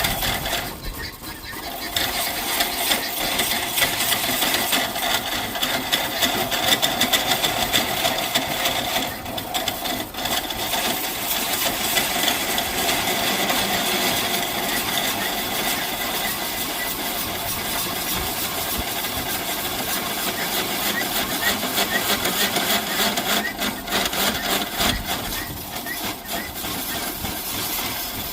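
Power tool running steadily as it works the willow wood, easing off briefly about a second in and again around nine to ten seconds in.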